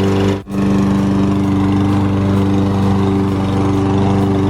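Push lawn mower engine running steadily at a constant speed, under test after a blade replacement. There is a brief break in the sound about half a second in.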